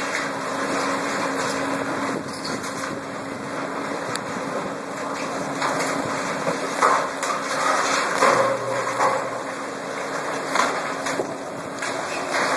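Heavy demolition machinery, an excavator's diesel engine, running steadily, with a few louder knocks about seven to nine seconds in.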